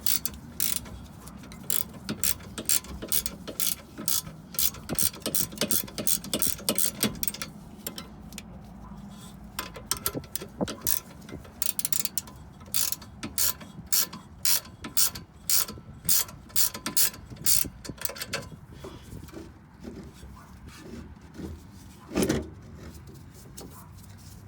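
Hand ratchet wrench clicking in quick, even strokes on the 14 mm nut of a sway bar end link, working it loose. The clicking stops about 18 s in, with a few scattered clicks and one louder knock near the end.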